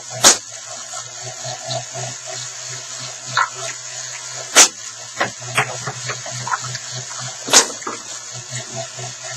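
3D-printed table tennis ball machine running, its launcher motors giving a steady whirring hiss over a pulsing hum. Ping-pong balls knock sharply over it, three loudly a few seconds apart and several more faintly.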